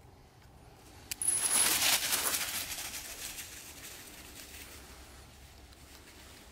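A sharp metallic click and brief clink of collar hardware as the Walker coonhound is turned loose, then a loud rush of rustling dry leaves as she bolts away, fading over a few seconds.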